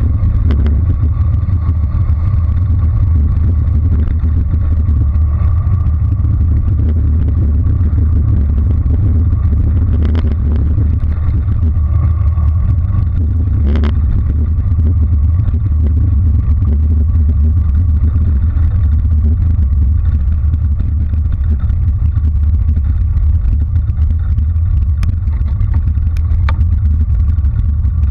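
Wind buffeting a bike-mounted GoPro's microphone, mixed with tyre rumble from a bicycle rolling on asphalt: a loud, steady low rumble, broken by a few brief clicks around ten and fourteen seconds in and again near the end.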